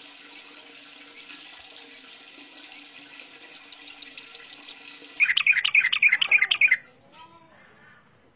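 Yellow-vented bulbul (trucukan) song: a loud burst of rapid, chattering notes about five seconds in, lasting under two seconds. Before it, short rising chirps repeat over a steady hiss, coming faster as they go.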